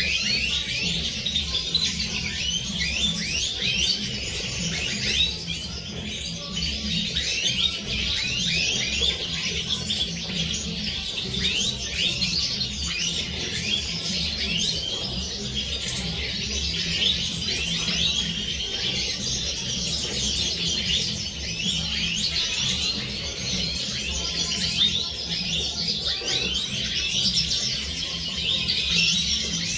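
A flock of Siberian goldfinches twittering and singing together, a dense chorus of quick, high, falling chirps with no pauses, over a steady low hum.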